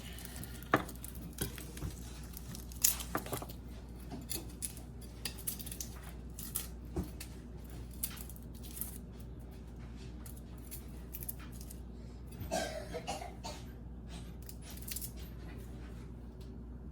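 Scattered clinks and knocks of kitchen utensils and dishes being handled while food is prepared, a few sharper ones early, over a steady low hum.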